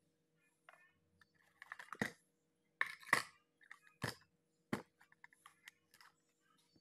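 Hard plastic boxes holding metal parts clicking and knocking as they are handled and set down. There are several sharp clicks between about one and a half and five seconds in, then a few fainter ticks.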